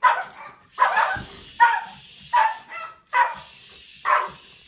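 Small dog barking repeatedly, about six sharp barks a little under a second apart, while held on a leash. It is the reactive barking of a dog with lifelong fear aggression toward people.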